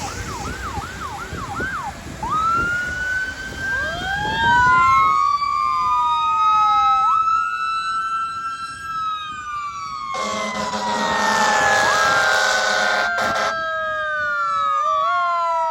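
Fire engine sirens: a fast yelp at the start, then several sirens wailing at once, rising and falling in pitch. From about ten seconds in, a deep steady horn sounds under the wails, with a short break near the end.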